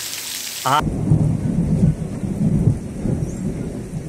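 Steady hiss of heavy rain, then, about a second in, a low, uneven rumble from a rainstorm that carries on to the end.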